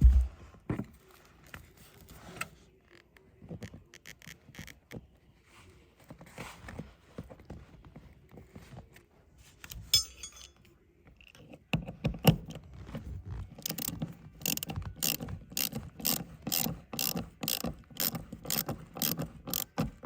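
Ratchet wrench clicking as seat-belt anchor bolts are run down. At first there are scattered clicks and knocks; about two-thirds of the way in they become a steady series of ratchet strokes, about two a second.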